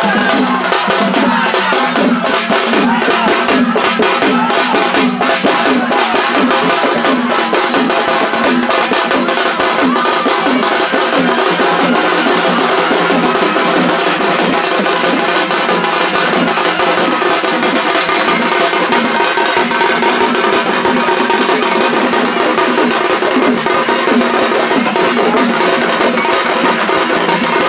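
Loud drum-led music, with drums beating rapidly under sustained melodic tones.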